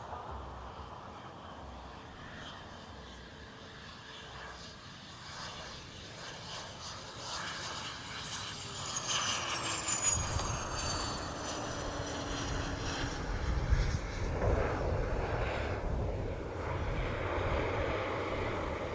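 Cessna Citation V business jet's twin Pratt & Whitney Canada JT15D turbofans whining on its landing approach, the whine dropping in pitch as the jet passes about eight seconds in. From about ten seconds in it grows louder, with a low rumble as the jet touches down and rolls out on the runway.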